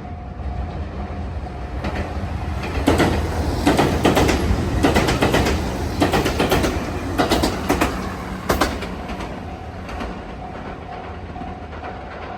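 A train passing over a level crossing, its wheels clacking over the rail joints in quick groups for about six seconds, loudest in the middle. The crossing's warning bell rings on in a steady repeating tone and is drowned out while the train goes by.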